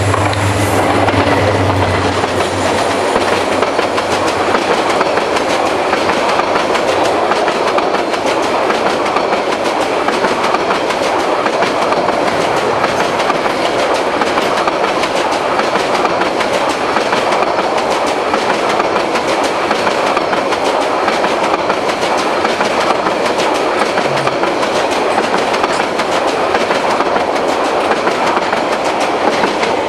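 Diesel locomotive of an express passenger train passing close by, its engine drone dying away within the first few seconds. Then a long rake of passenger coaches goes past at speed with a steady rumble and continuous wheel clatter over the rail joints.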